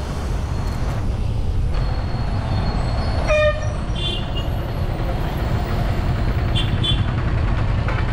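Steady low rumble of road traffic and wind on the microphone while cycling, with one short vehicle horn toot about three and a half seconds in and a few brief high beeps after it.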